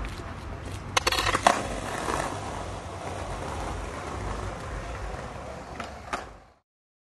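Skateboard wheels rolling over block paving, with a cluster of sharp wooden clacks about a second in and the loudest one half a second later, as the board is popped and landed for a trick. Two lighter clacks come near the end, then the sound cuts off suddenly.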